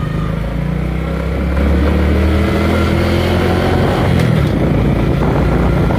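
Honda Biz scooter's single-cylinder four-stroke engine pulling under way. Its note rises and gets louder about a second and a half in, then holds steady.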